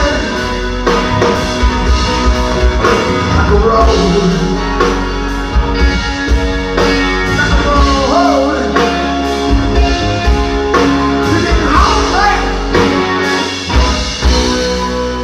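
Live blues-rock band playing: electric guitar, bass guitar and drum kit, the drums keeping a steady beat while the guitar plays bent notes.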